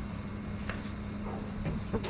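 Steady low mechanical hum with a constant tone and a low rumble underneath, with a few faint clicks.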